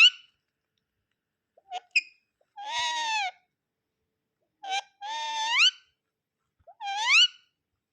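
Pet parrot calling in its own voice: a string of about six short, pitched calls, several ending in a rising upward sweep, with silent gaps between them.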